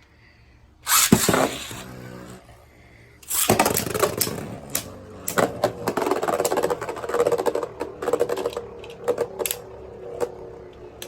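Beyblade Burst spinning tops, Turbo Achilles A4 among them, in a plastic stadium: a sudden loud rush about a second in, then from about three and a half seconds in a steady whir with many sharp clacks as the tops hit each other and the walls, easing off near the end.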